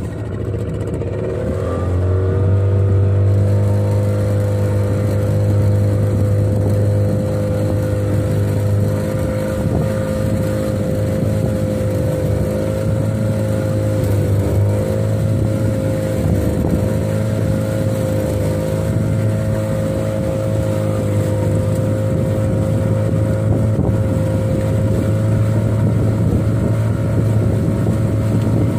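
Boat's outboard motor throttling up, its pitch rising over the first two or three seconds, then running steady at cruising speed.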